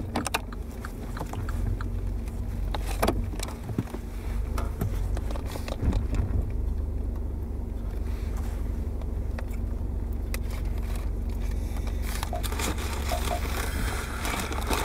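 Paper takeaway bag rustling and crinkling as it is handled, with a few sharp clicks, over a steady low hum inside a car.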